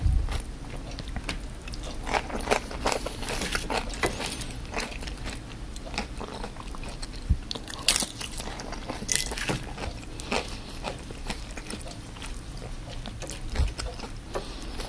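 A person biting into and chewing crispy deep-fried opo squash fritters: irregular, sharp crunches, the loudest about eight and nine seconds in.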